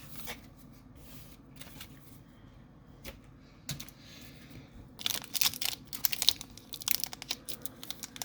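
Foil Pokémon TCG booster pack wrapper being torn open and crinkled: a few faint clicks, then a dense, sharp crackling from about five seconds in.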